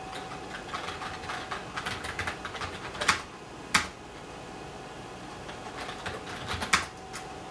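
Typing on an IBM PS/2 Model 25's keyboard: a quick run of key clicks, two louder single keystrokes about three seconds in, then a second short burst of typing near the end finishing on a louder keystroke.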